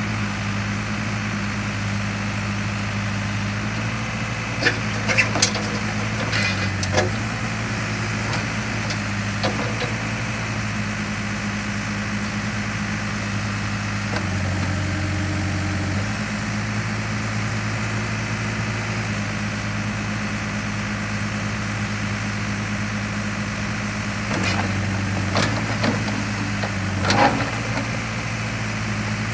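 Case 580 Super M loader backhoe's diesel engine running steadily, its note dropping lower and stronger for about two seconds midway. A few short knocks come around five seconds in and again near the end.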